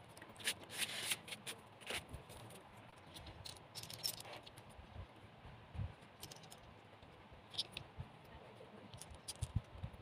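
Hands handling small craft pieces at close range: scattered light clicks, taps and rustles, busiest in the first couple of seconds, with a few soft low thumps later on.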